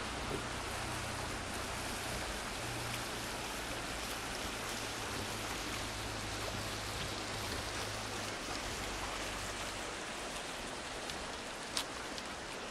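Fast-flowing creek rushing over rocks, a steady, even hiss of water. One sharp click near the end.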